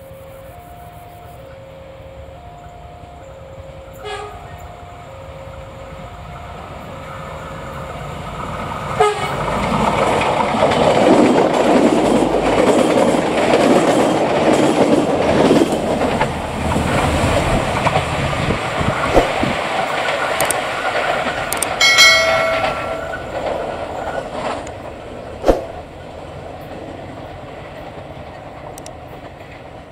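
A two-note electronic warning chime alternates steadily for the first several seconds. Then a Prameks commuter train approaches and rushes past at speed, its wheels clattering over the rail joints for about fifteen seconds. A brief horn blast sounds near the end of the pass.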